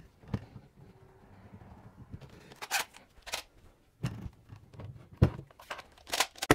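One-handed quick-release bar clamps being released and pulled off a glued-up wooden carcass: scattered sharp clicks and knocks of clamp triggers and jaws, with a cluster near the end.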